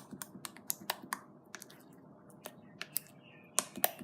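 Slime being poked with one finger, giving short sticky clicks and pops at irregular intervals, several in the first second, a few scattered through the middle and a quick cluster near the end.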